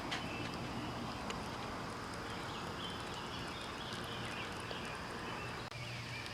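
Steady background noise with a low hum and faint, intermittent bird chirps.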